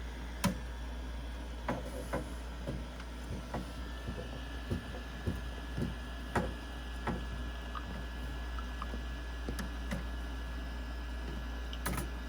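Scattered small clicks and taps of a screwdriver working a tiny motherboard screw into its standoff in a PC case, over a steady low hum.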